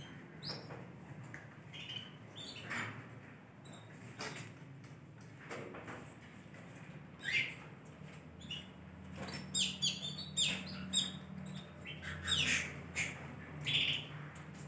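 Caged Yorkshire canaries giving scattered short chirps and calls, some sliding down in pitch, mixed with sharp clicks.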